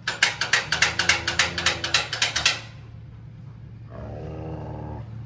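A metal chain rattling fast against a steel gate for about two and a half seconds, then a dog's low growl starting about four seconds in.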